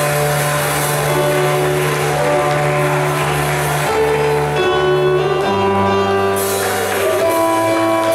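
Instrumental church band music: long held keyboard chords over sustained bass notes. The chords change about four and five and a half seconds in.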